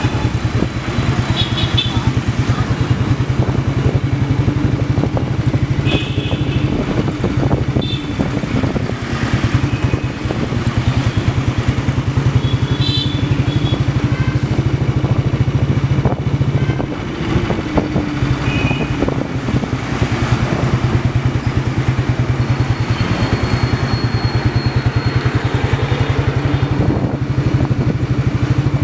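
Motorcycle engine running steadily under the rider while riding through city traffic, with a few short high-pitched toots heard over it.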